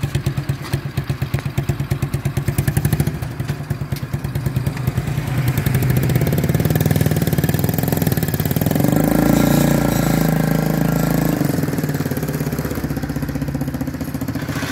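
Homemade mini tractor's single-cylinder Bajaj Platina motorcycle engine idling with an even putter. About five seconds in it revs up and gets louder as the tractor pulls away under way, loudest about two-thirds of the way through.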